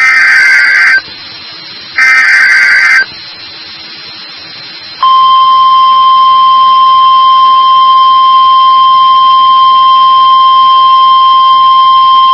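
NOAA Weather Radio Emergency Alert System signal: two one-second bursts of the SAME digital header, a harsh data screech, about a second apart. After a short pause, the steady single-pitch 1050 Hz warning alarm tone starts about five seconds in and holds. It announces the flash flood warning that follows.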